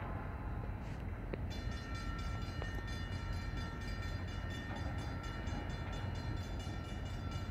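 Railroad grade-crossing warning bells start ringing about a second and a half in and keep on with evenly repeating strokes, over the low steady rumble of an approaching train.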